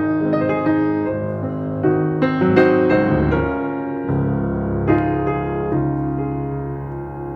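Piano music: notes and chords struck one after another and left to ring.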